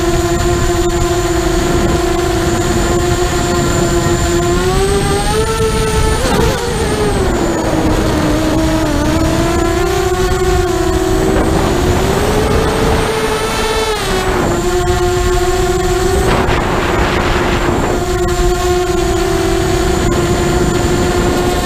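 Mini FPV quadcopter's brushless motors and propellers whining, heard from the onboard camera with wind rushing over it. The pitch rises and falls as the throttle changes, and for about two seconds in the second half the whine drops out, leaving only the wind noise.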